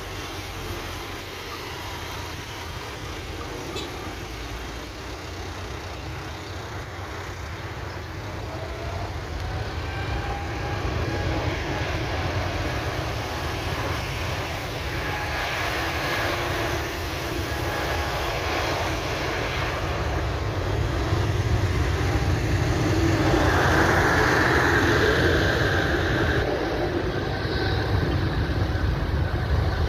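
Jet engines of a Saudia Boeing 777-300ER, twin GE90-115B turbofans, running and growing steadily louder as the airliner moves along the runway. The sound is a low rumble with faint whining tones above it.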